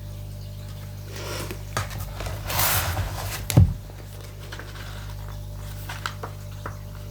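Handling noise, likely an oracle card deck being handled: rustling from about a second in, a brief hiss, then one sharp thump, all over a steady low hum.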